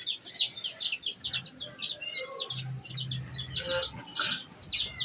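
A group of domestic chicken chicks peeping without a break: many short, high, downward-sliding cheeps overlapping, several a second.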